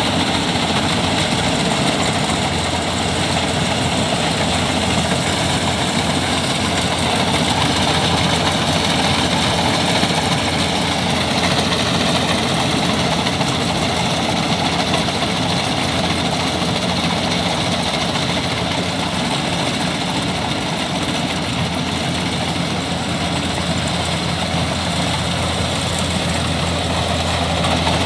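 Kubota rice combine harvester running steadily while it cuts and threshes rice: a diesel engine together with the whir of its cutting and threshing machinery. It grows slightly louder near the end as the machine comes closer.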